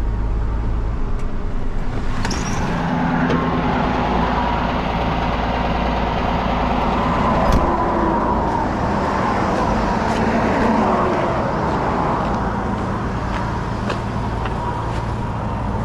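Steady highway traffic noise from passing vehicles, with a single sharp knock about seven and a half seconds in.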